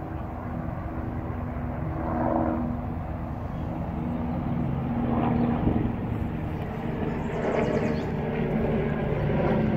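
Steady engine drone with a low hum that slowly shifts in pitch, over a rushing outdoor noise.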